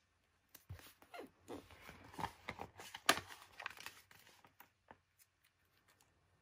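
Paper sticker sheet and its backing paper rustling and crackling as they are handled and flipped over, with a few light clicks. The sound dies away about five seconds in.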